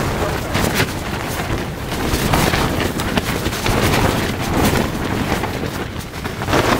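Dome tent buffeted by strong gusting wind: the nylon fly and walls flap and snap irregularly over a steady rush of wind.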